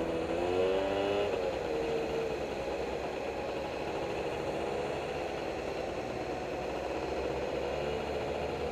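Truck engine running steadily at idle. A pitched tone wavers and fades out in the first second and a half.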